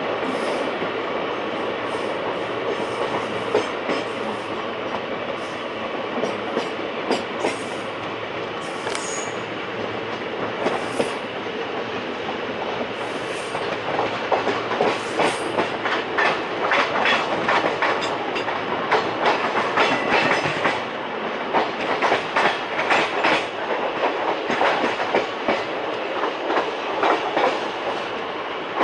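Express train's passenger coach running at speed, heard from the doorway: a continuous rumble and rush of wheels on rail. From about halfway through, sharp clicks and clatter come thick and fast as the wheels cross rail joints and points in the station yard.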